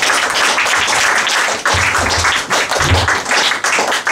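Audience applauding in a small room, with two short low thuds about two and three seconds in.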